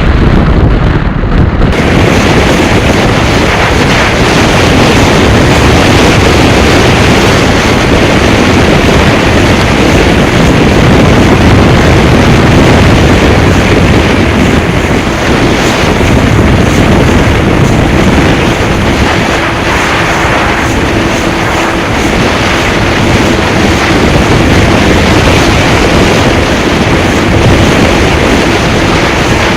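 Strong gusty wind buffeting the microphone on an open pontoon boat, a loud continuous rumbling hiss. A faint steady hum comes in about halfway through.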